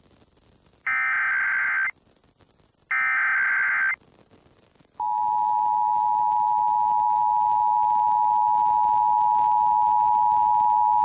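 Emergency Alert System SAME header: two one-second bursts of warbling digital data tones, a second apart. About five seconds in, the EAS two-tone attention signal (853 and 960 Hz together) starts and holds steady, opening a Required Monthly Test.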